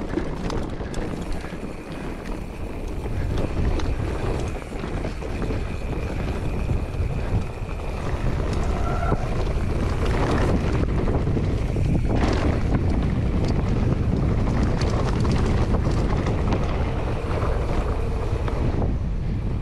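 Wind buffeting the microphone of a camera on a mountain bike riding down a dirt trail. Under it are the tyres running over dirt and short rattles and knocks from the bike over bumps.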